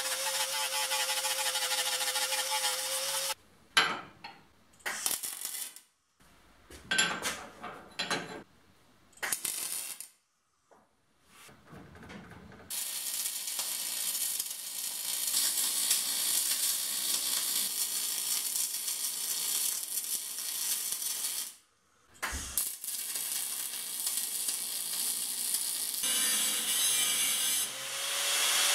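Angle grinder cutting steel flat bar with a steady whine, then a stretch of short broken bursts, then the steady crackling hiss of a Fronius TransSteel 2700 MIG welder laying beads on steel tube, broken once briefly; near the end the grinder spins up again.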